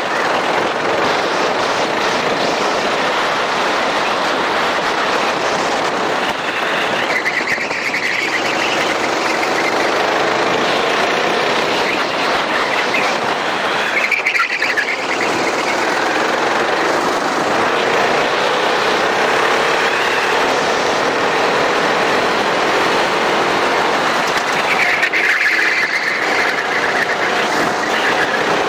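A racing kart's engine runs hard at close range under heavy wind rush, its pitch slowly rising and falling through the lap. Brief high tyre squeals come at a few corners, about a quarter, a half and near the end of the way through.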